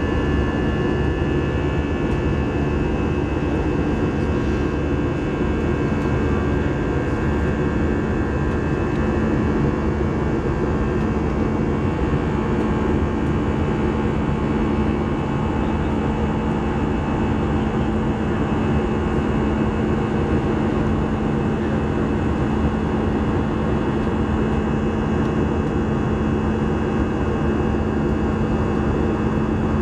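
Steady cabin noise of an Airbus A319-100 in its climb, heard from a seat over the wing. The jet engines and the rushing air make an even roar, with a steady low hum and a faint higher whine on top.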